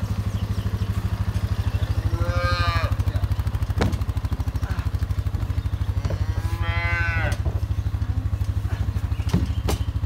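Cattle mooing twice, each call about a second long and rising then falling in pitch, over the steady idle of a quad bike engine. A couple of sharp knocks come between and near the end.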